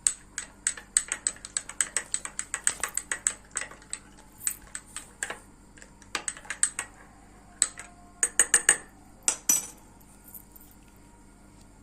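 A metal spoon stirring a drink in a glass, clinking against the sides about five times a second for the first four seconds. Then come scattered clinks and a short cluster, which stop about ten seconds in.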